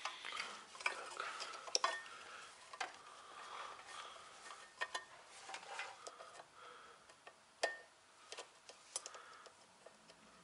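Scattered light clicks and taps with some rustling: a multimeter, its test leads and small parts being handled by hand. The sharpest clicks come about two seconds in and again near the end.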